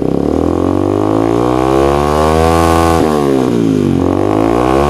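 Yamaha Vixion New's 150 cc single-cylinder four-stroke engine revved on the stand through its exhaust: it climbs from idle over about two seconds, drops back about four seconds in, then is revved again near the end. The engine is being revved to check that the charging voltage rises, from about 13 V at idle to 14 V.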